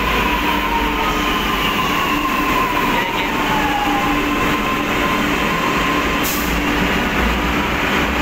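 Lucknow Metro train pulling into an underground station and slowing along the platform: a steady running noise with a whine that falls in pitch over the first few seconds as it brakes.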